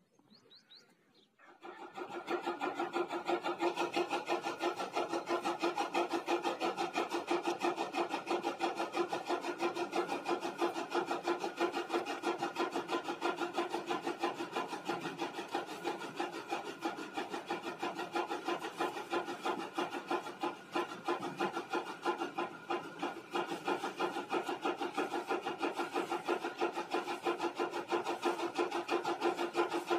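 Goats tearing and chewing fresh green grass fodder at close range: a continuous, rapid rasping crunch that starts suddenly about a second and a half in and keeps up at an even level.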